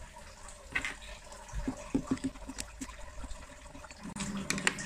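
Small screws being driven back into the plastic base of an Osmio Duo hydrogen water bottle with a small screwdriver: scattered light clicks and scrapes, clustered about two seconds in and again near the end.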